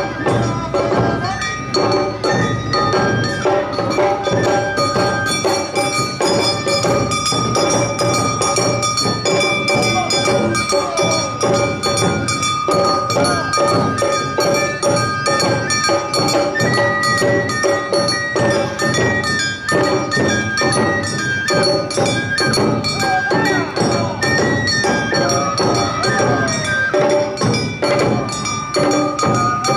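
Awa odori festival band (narimono) playing: a bamboo flute melody of held notes over steady drum strokes, with the ringing clang of the kane hand gong.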